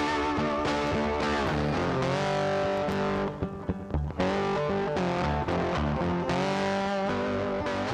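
Outro music led by an electric guitar with distortion, with bending lead notes over bass.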